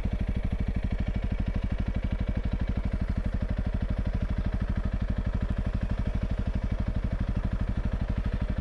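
Motorcycle engine running steadily at low revs with an even pulsing beat, the bike rolling slowly.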